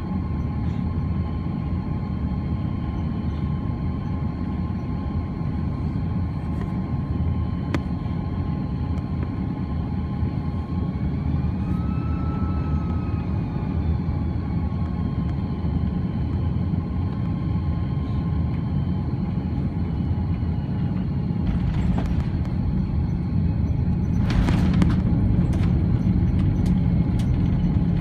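Airbus A330-300 cabin noise: a steady rumble of engines and airflow with thin steady engine tones. About twelve seconds in, one tone briefly rises and falls in pitch. Near the end there are a couple of short rattling bursts, and the noise grows slightly louder.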